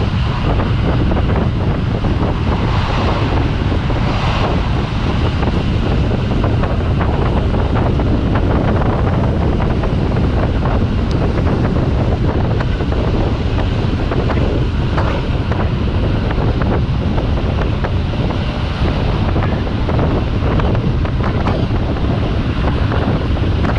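Steady rush of wind and rumble of a moving passenger train heard at an open carriage window, with the rapid knocking and clatter of wheels on the track.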